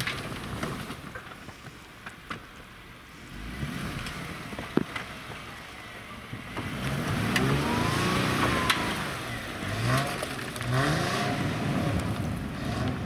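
Off-road vehicle engine revving under load, its pitch rising and falling in two surges in the second half, with scattered knocks and clatter throughout.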